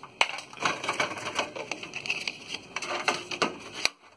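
Rapid, irregular clicking, rattling and scraping of hands working inside a steel desktop PC case, tugging at a stuck IDE ribbon-cable connector. The handling stops abruptly near the end.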